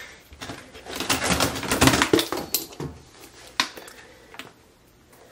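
Clear plastic stackable shoe boxes being handled: a busy run of plastic clicks, taps and knocks that is loudest about two seconds in and dies away after about four seconds.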